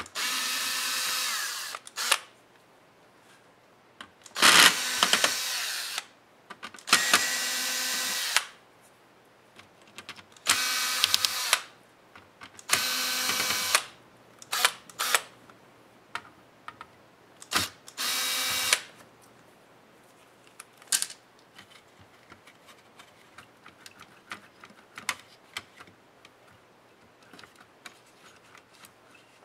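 Small cordless electric screwdriver whirring in about six short runs of a second or two each, backing out the screws that hold a laptop motherboard, with a few shorter blips between them. In the last third only scattered light clicks are heard.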